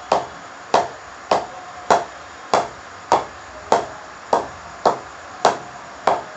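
A pink leather cricket ball bounced repeatedly on the face of a new SG Triple Crown Xtreme English-willow bat: about eleven sharp knocks, evenly paced at a little under two a second. It is a ping test of the new, not-yet-knocked-in bat, which the owner finds has a promising softness off the face.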